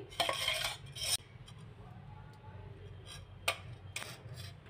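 Ghee being added to a steel kadhai on a gas stove: a brief clatter of spoon and pan in the first second, then a faint low hum with a few sparse ticks from the pan as the ghee starts to melt.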